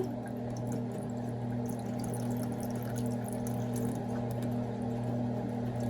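Rinse water pouring and dripping out of a strainer of okra into a sink, over a steady low hum.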